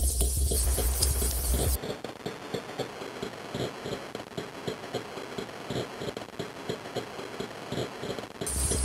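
Improvised experimental electronic noise music: a high hiss and a deep drone cut out suddenly about two seconds in, leaving a dry, scratchy crackling texture, and cut back in near the end.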